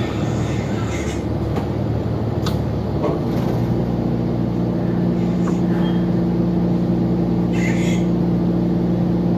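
Running sound of a New Flyer XDE40 Xcelsior hybrid bus heard from inside the cabin, with a few light clicks and rattles. About three seconds in, a steady multi-pitched drivetrain hum sets in and holds.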